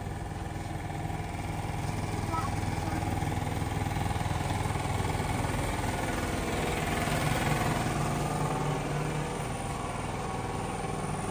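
Vehicle engine running steadily, growing louder towards the middle and easing off a little near the end.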